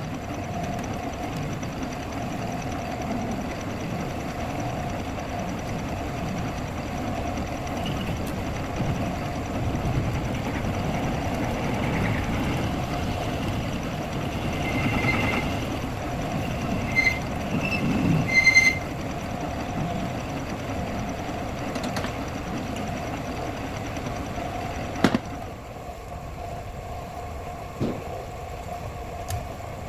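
A steady engine running, with a few short ringing metallic clinks a little past halfway and single sharp knocks later on.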